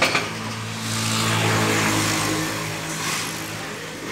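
A motor vehicle engine running close by, swelling louder about a second in and then easing off.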